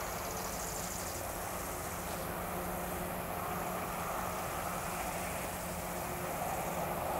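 Steady low drone of an approaching LDH 125 diesel-hydraulic locomotive's Caterpillar engine running, between blasts of its horn.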